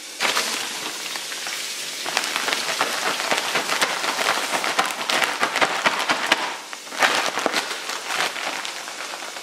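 Raw chicken pieces being shaken in a plastic zip-top bag of flour: a dense rustling rattle of crinkling plastic and tumbling chicken that breaks off briefly about six and a half seconds in, then starts again.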